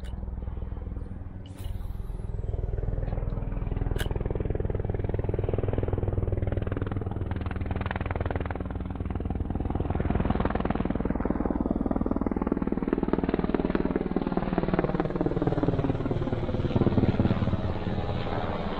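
Helicopter flying low overhead: a deep steady drone with the fast even beat of the rotor blades. It grows louder toward the end, and its pitch bends as it passes.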